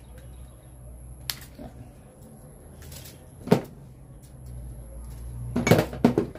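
Hands working wires into a plastic convenience outlet's terminals: a few sharp clicks and knocks, the loudest about three and a half seconds in and a quick cluster near the end, over a low steady hum.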